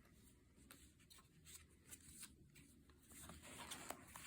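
Near silence with faint rustling and light ticks of paper pages and cardstock being handled, a little louder near the end.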